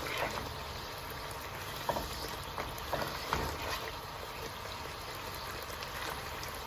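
Jaggery syrup with grated coconut simmering in a pan: a steady bubbling hiss, with a few faint taps from the stirring spoon.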